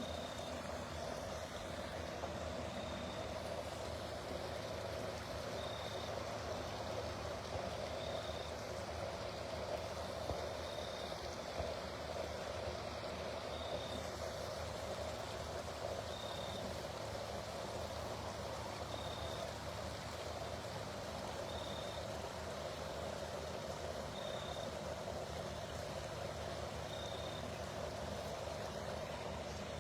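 Steady night-time outdoor background: an even low hum, like distant idling machinery or flowing water, with a short high chirp repeating about every two and a half seconds.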